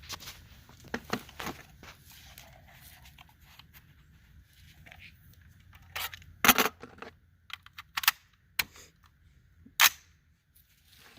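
Rifle shots from an Anderson AM-15 AR-15 chambered in 7.62x39: several sharp cracks spread over about four seconds, the loudest about six and a half seconds in, after a few quiet handling clicks.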